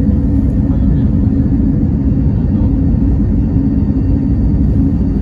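Airliner cabin noise during the climb just after takeoff: the engines at climb power heard through the fuselage as a loud, steady low rumble, with a faint steady whine above it.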